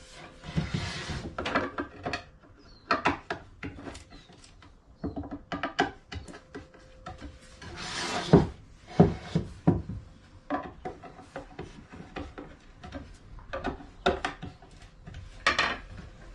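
Wooden flat-pack drawer parts being fitted together: a drawer front slotted onto the drawer box, with a string of small knocks and clicks of board on board and two longer scraping rubs, about half a second in and about eight seconds in.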